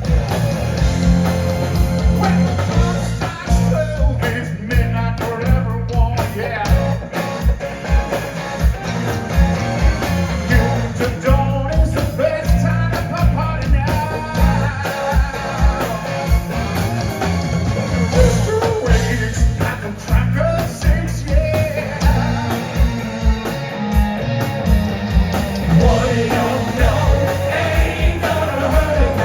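A live rock band playing a song: a singer over electric guitars, bass and drums keeping a steady beat.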